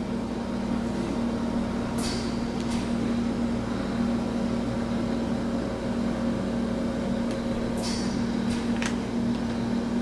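Steady mechanical hum, with a few light clicks of tiny screws and a precision screwdriver being handled on a small drive caddy, about two seconds in and again near the end.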